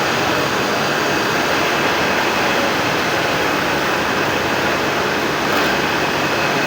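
Automatic sock machines running with a steady mechanical whir and a faint high whine, unbroken throughout.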